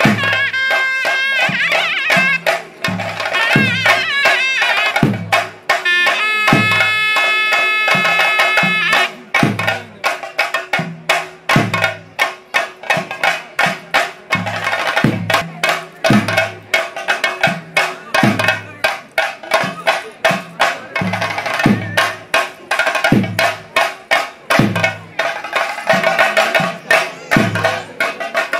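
Traditional Kerala theyyam percussion: drums beaten in a steady rhythm of deep strokes under dense bright metallic strikes. A high piping melody plays over them for about the first nine seconds.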